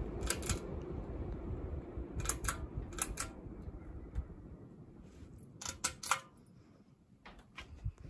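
Hunter Baseball ceiling fan winding down after being switched off from high, its steady rush of motor and blades fading away. Pull-chain switches click several times over it, mostly in quick pairs.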